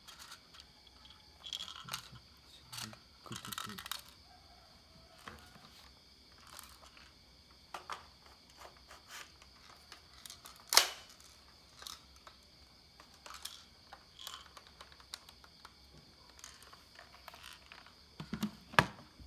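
Handling noise from an airsoft rifle and its magazine: scattered plastic clicks, knocks and rubbing. One sharp, loud click comes about eleven seconds in, and another strong click near the end.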